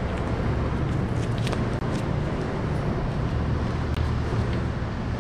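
Steady low rumble of road traffic with a faint hum, and a few faint clicks on top.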